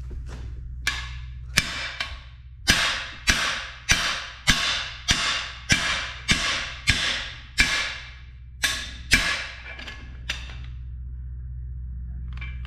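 Hammer blows on a cam bearing installer bar, driving a cam bearing into the cam bore of an aluminum LS 5.3 block: a steady series of sharp, ringing metal strikes, a bit under two a second, that stop about ten seconds in. A steady low hum lies underneath.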